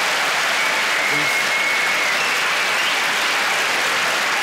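Large audience applauding steadily and loudly in reaction to a punchline.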